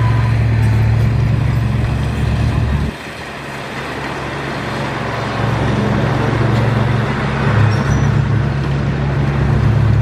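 Heavy diesel engine of earth-moving machinery running with a steady low drone. The drone drops off suddenly about three seconds in, then builds back up over the next few seconds.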